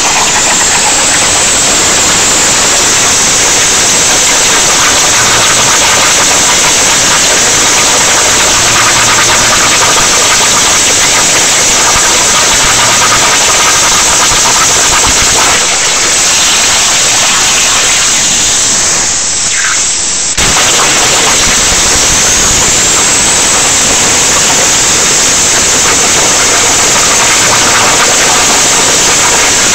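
CNC plasma cutter torch cutting steel plate: a loud, steady hiss. About two-thirds through, the hiss sags for a couple of seconds, then comes back in suddenly.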